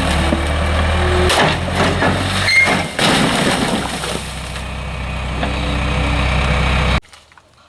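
An engine running steadily with a deep rumble, with sharp cracks and knocks over it. The sound cuts off suddenly about seven seconds in.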